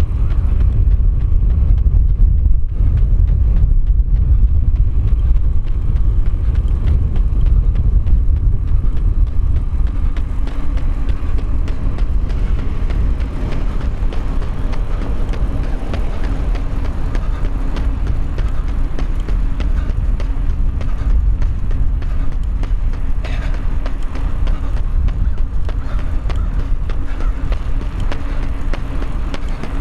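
Heavy wind rumble on the microphone of a camera carried by a runner at speed, with a faint steady hum joining about a third of the way through.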